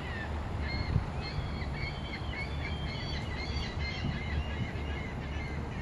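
Small birds chirping, many short high chirps in quick succession, over a steady low background rumble, with a brief low bump about a second in.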